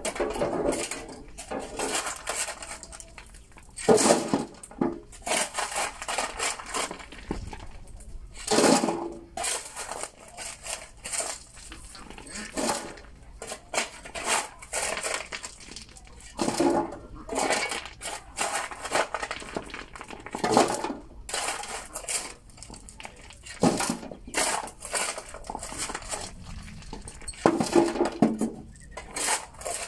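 Shovel scraping into a pile of crushed stone and tipping loads into a wheelbarrow, the stones clattering and grinding over and over, with the heaviest strokes every few seconds.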